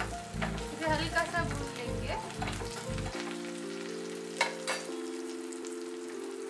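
Garlic cloves and green chillies sizzling steadily in hot oil for a tadka, with two short clicks about four and a half seconds in. Background music plays underneath.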